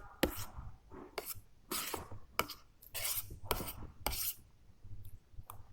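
A spoon scraping and clinking on a plate of rice and chicken curry, in a series of about eight short scrapes.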